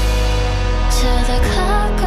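Background electronic music: a steady bass under a held chord, with a gliding melody line coming in about one and a half seconds in.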